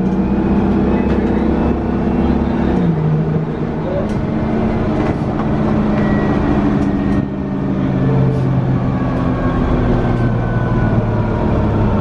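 Detroit Diesel 6V92TA two-stroke V6 diesel of a 1990 Orion I bus, heard from inside the rear of the cabin, pulling the bus along under load. The engine note drops sharply about three seconds in and again about seven seconds in, as the Allison automatic transmission shifts up. A thin whine falls slowly in pitch through the second half.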